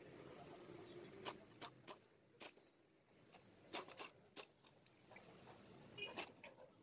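Faint, scattered clicks and light taps, about eight in all, of small metal engine parts being handled and set in place during reassembly of a two-stroke motorcycle engine.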